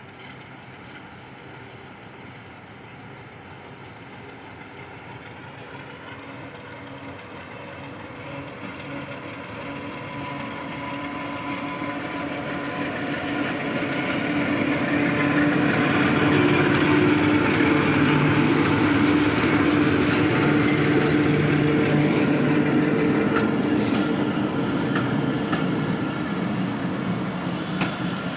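Bangladesh Railway diesel locomotive hauling a passenger shuttle train in on the next track. Its engine grows steadily louder over about fifteen seconds as it approaches, then its coaches rumble past with a few sharp wheel clicks.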